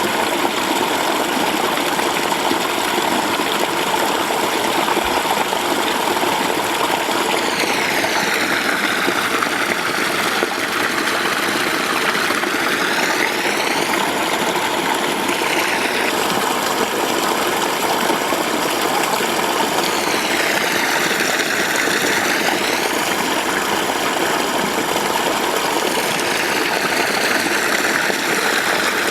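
A mountain stream flowing, a steady loud rush of water with no pauses.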